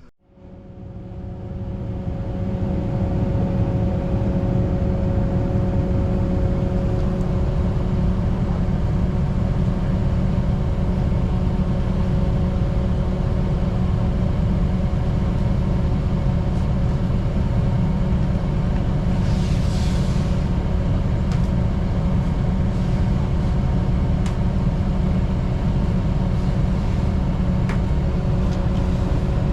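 Pump engine running steadily with a low drone and a constant hum while liquid is pumped out of an underground oil tank. A brief hiss comes about two-thirds of the way through.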